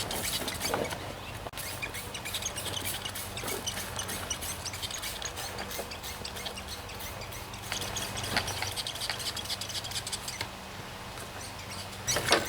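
Hand spray bottle spraying degreaser over a riding mower: a run of short hissing squirts and clicks over a steady low hum.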